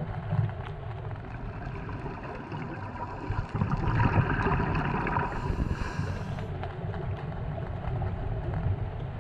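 Muffled underwater sound picked up through a camera housing: a steady low rumble, with a swell of bubbling hiss from a scuba regulator's exhaled air from about three and a half to seven seconds in.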